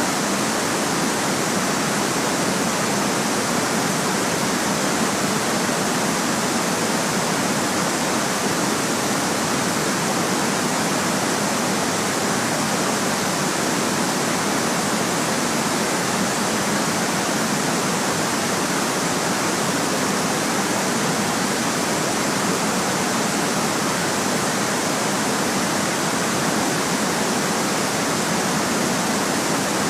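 Steady white noise: an even, unchanging hiss spread across the high and middle range, with little deep bass.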